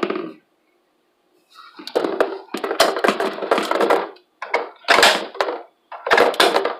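Plastic spiralizer parts being handled: irregular rustling and clattering with sharp clicks, in three bursts after a second of quiet.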